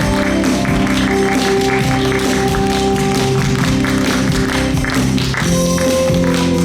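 Instrumental music with sustained tones over a steady tapping beat.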